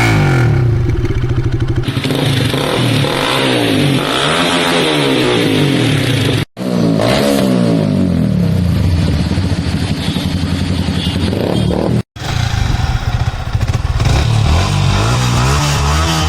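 Motorcycle exhausts being revved, the engine pitch rising and falling again and again. The sound comes in three segments, with abrupt cuts about six and twelve seconds in.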